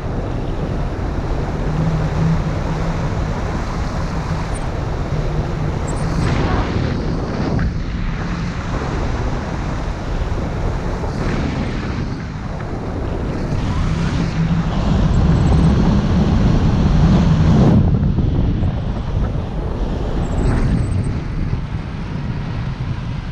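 Wind buffeting the microphone of a selfie-stick camera in tandem paragliding flight: a loud, uneven rushing that swells about two-thirds of the way through.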